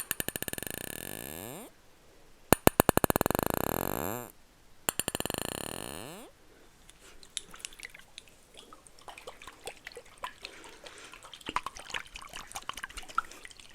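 Three bursts of rapid, evenly spaced clicking, each fading out over a second or two, followed by scattered light taps and clicks from objects being handled close to the microphone.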